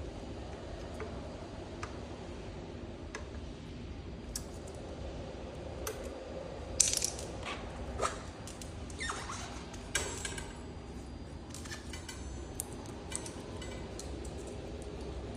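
Scattered light clicks and a few sharper metal clinks and knocks, loudest a little before the middle, from hand tools and small metal parts being handled during the repair of an electric scooter's rear motor.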